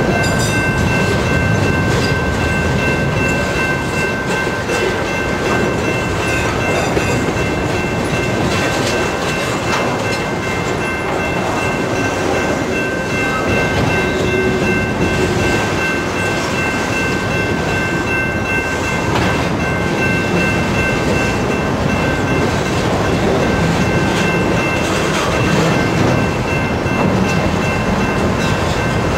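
Freight train of autorack and tank cars rolling steadily past, the wheels clattering over the rail joints, with a steady high-pitched tone running throughout.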